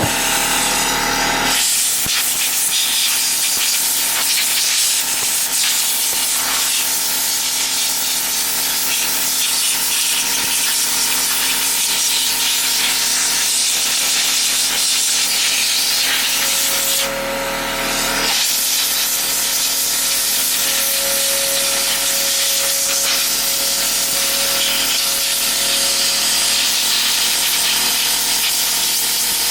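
Compressed air hissing steadily from a blow nozzle, blasting caked sawdust and bar oil off a chainsaw. The blast eases briefly once, a little past the middle.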